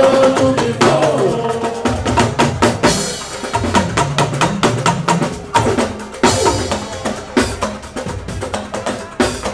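Live fuji band's drums and percussion playing a fast, dense rhythm, with singing over the microphone near the start.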